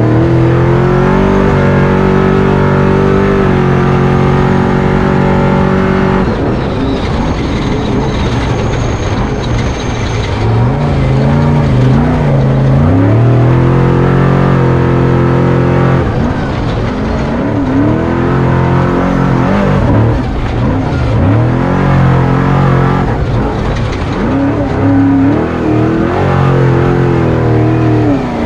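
Off-road truck engine revving hard under load, held at steady high revs for the first several seconds, then rising and falling again and again with the throttle.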